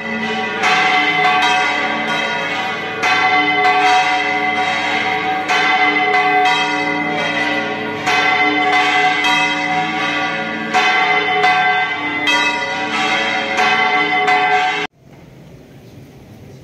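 Church bells ringing, several bells struck one after another at an uneven pace, their tones ringing on and overlapping. The ringing cuts off abruptly near the end, leaving only faint room noise.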